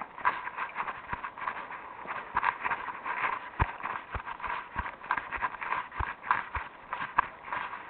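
Footsteps walking on a hard surface: a steady run of clicks and scuffs, with a firmer heel thud about every 0.6 s through the second half.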